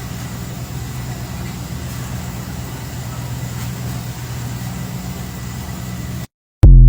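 An engine running steadily with a low, even hum, cutting off suddenly about six seconds in. Right at the end comes a brief loud burst of a man singing.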